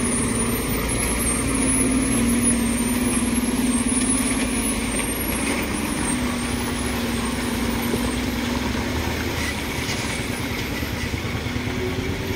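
Diesel engine of a heavily loaded multi-axle Ashok Leyland truck pulling slowly through a tight turn, a steady low drone.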